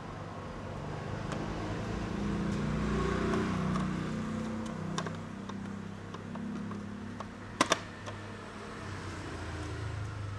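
A low vehicle-like hum swells and fades in the background, over scattered light clicks and a sharp double click of laptop parts being fitted back together.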